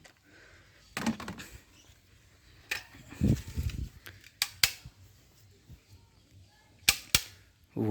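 A handful of sharp plastic clicks and knocks from a toy gun being handled, with a short low rumble of handling noise partway through.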